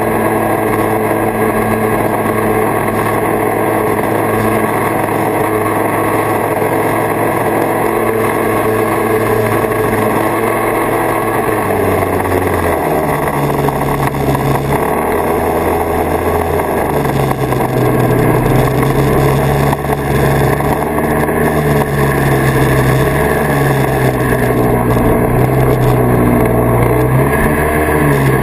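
1979 Kawasaki Invader 440 snowmobile's two-stroke engine running steadily under way. About twelve seconds in the engine note drops, then rises and falls with the throttle.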